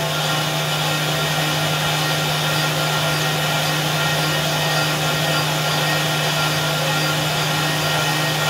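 CNC machining centre's spindle turning a quarter-inch bullnose end mill at about 9,200 rpm as it helically mills a hole in brass under coolant. A steady low hum with a continuous cutting hiss.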